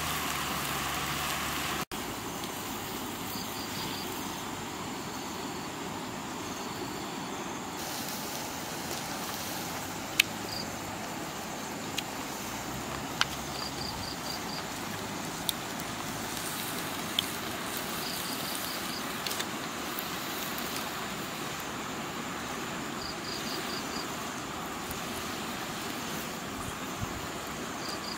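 Wood fire crackling under a pan of mushrooms simmering in sauce, with a handful of sharp pops over a steady hiss. An insect chirps in short trills of four or five pulses every few seconds.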